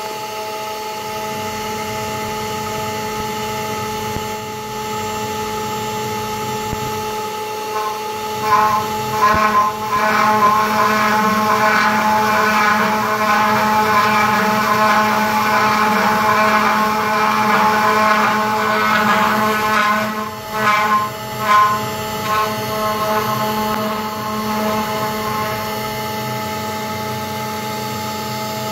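CNC router spindle running with a steady whine. From about eight seconds in, its bit cuts into a pine board, adding a louder rasping cutting noise that comes and goes in surges, then drops back to the spindle whine about two thirds of the way through.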